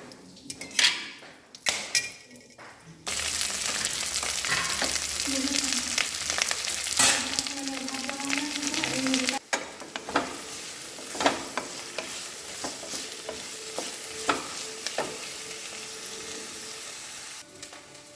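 Food frying in hot oil in a pan while a utensil stirs it. After a few knocks on the pan, a loud sizzle starts suddenly about three seconds in and eases off about nine seconds in. The utensil keeps tapping and scraping against the pan through the quieter sizzle that follows.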